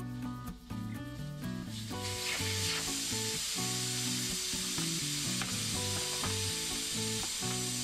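Background music with a stepping melodic bass line. About two seconds in, a steady hiss joins and runs on over it.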